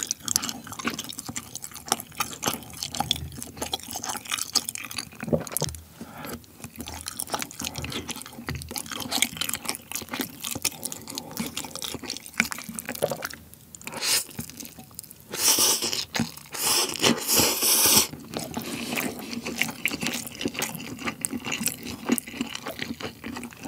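Close-miked wet chewing and slurping of saucy rabokki (ramen noodles, rice cakes and sausage in a spicy cheese sauce), full of small irregular mouth clicks, with a louder slurp of about two seconds some two-thirds in.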